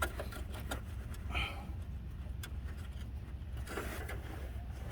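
Scattered light clicks and taps of metal parts being handled during wheel hub refitting, over a steady low background rumble.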